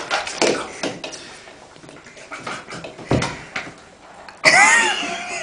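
Knocks and handling noises against a bathtub in a small, echoing bathroom, with a dull thump about three seconds in and a short burst of high-pitched voice near the end.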